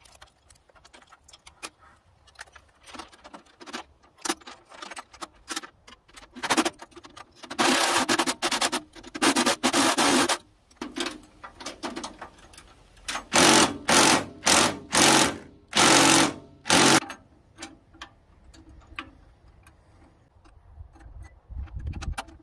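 Steel wire cable pulled by hand through the sawmill's mast and pulley, with light metallic clicks and ticks and loud rasping strokes: a run of them about a third of the way in, then five shorter ones about two-thirds in.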